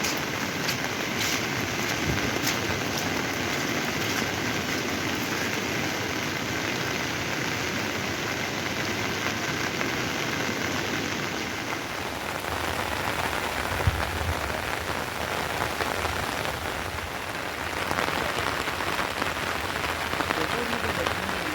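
Steady rain falling and pattering on surfaces, with one brief low thud a little past the middle.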